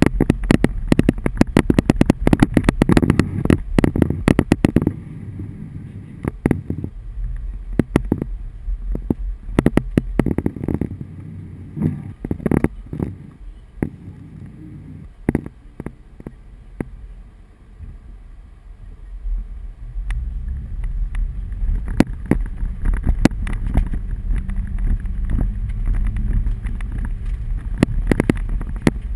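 Hailstones hitting a car's body and windshield in a rapid clatter that thins to scattered hits about five seconds in and picks up again near the end, over the low rumble of the vehicle driving.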